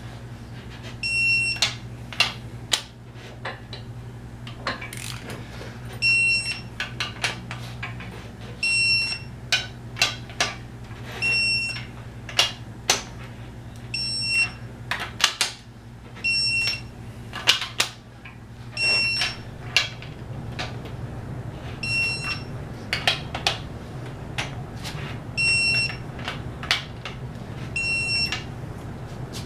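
A digital torque wrench beeping each time a cylinder head stud reaches the 90 ft-lb final torque, about ten short high beeps a few seconds apart. Between them the wrench's ratchet clicks as it is moved from stud to stud.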